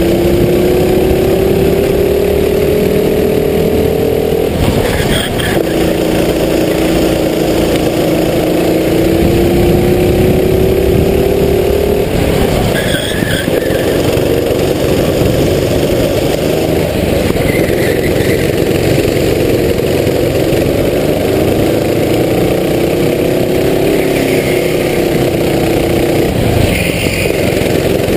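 Racing kart engine under full throttle, its pitch climbing steadily along each straight and falling away as the kart slows for corners: three long climbs, breaking off about four seconds in, near the middle and near the end.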